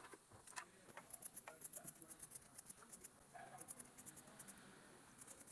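Faint quick clicks and light wet scratching as fingers rub metal sludge off the magnets in a Toyota Hilux automatic transmission oil pan. The pan sits in a film of old transmission fluid, and the magnets are loaded with wear debris.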